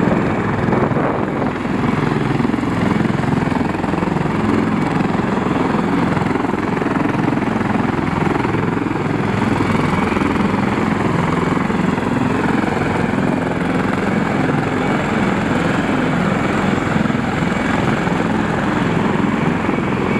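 Heavy-lift helicopter running close by: a loud, steady rotor and engine noise at an even level.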